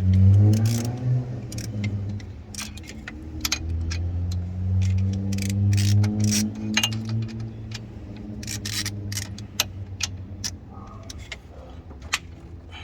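A vehicle engine running in the shop, its pitch rising and falling as it revs, with many sharp metallic clicks and clinks from hand tools.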